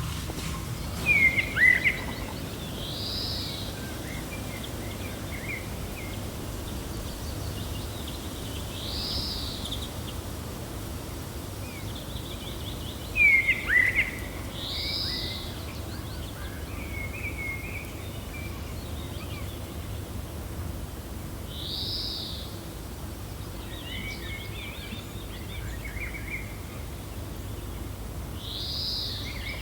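Gentle wind as a steady low rumble, with birds calling over it: one bird repeats a short arched call about every six seconds, and two louder bursts of quick sharp chirps come about a second in and again around the middle.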